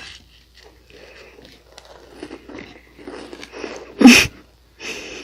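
Close-up chewing and crunching of Nunettine, a flaky puff-pastry snack, in short irregular bites, with one much louder crunching burst about four seconds in.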